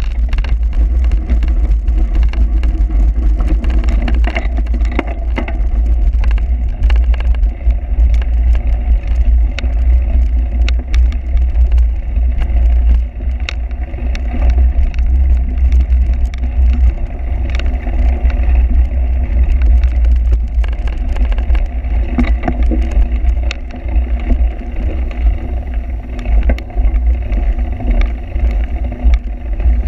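Heavy wind buffeting on the microphone with constant clicking and rattling, as from a cyclocross bike ridden hard over a rough, bumpy course.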